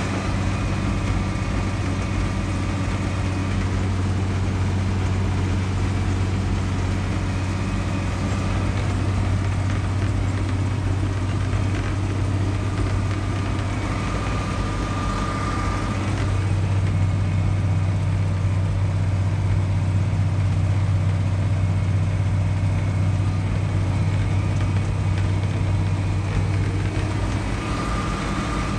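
Farm tractor engine running steadily under way on a gravel road, heard from inside the cab. Its note shifts slightly and gets a little louder about halfway through, and a faint high whine comes and goes.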